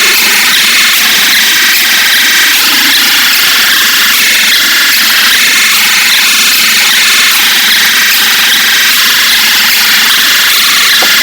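Loud, harsh static-like noise, held steady without pauses, as the closing part of a mock emergency alert system alarm.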